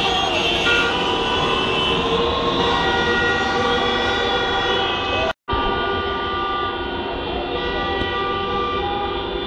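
Many car horns honking at once in celebration, a dense chorus of overlapping held tones. The sound cuts out for an instant about five seconds in.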